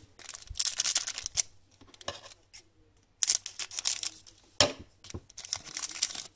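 Hockey trading card pack wrapper being crinkled and torn open by hand, in several short bursts of crackling with a sharp snap partway through.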